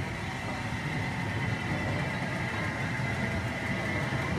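USATC S160 2-8-0 steam locomotive moving slowly: a steady hiss over a low rumble, with no distinct exhaust beats.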